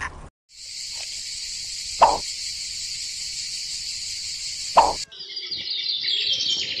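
A steady high insect drone, broken twice by a short loud animal call about three seconds apart. From about five seconds in, a rapid, busy high chirping takes over.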